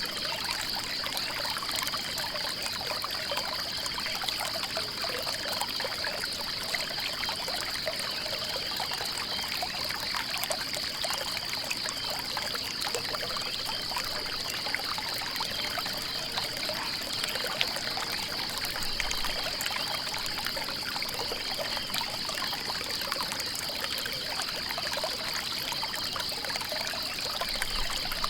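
Stream water trickling and splashing steadily, with a steady high, rapidly pulsing note running over it.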